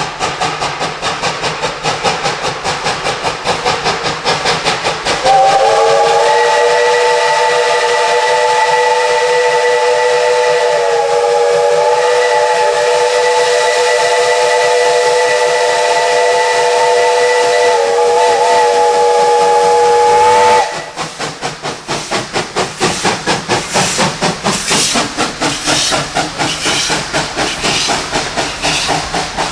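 Baldwin 4-6-0 narrow-gauge steam locomotive No. 190 working under load with a steady exhaust chuff. About five seconds in, its chime whistle sounds one long chord of several notes. The whistle holds for about fifteen seconds with a brief dip in the middle, then cuts off. The chuffing grows louder as the engine passes close by near the end.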